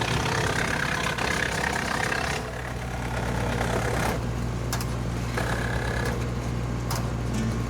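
Woodchipper's petrol engine running steadily, with a few sharp knocks.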